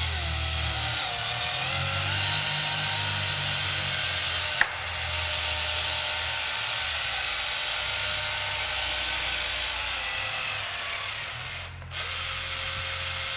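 Battery-powered caulking gun's motor running steadily as it pushes a triangular bead of urethane windshield adhesive onto the frame. A sharp click comes about a third of the way in, and near the end the motor dips briefly, then runs again before cutting off.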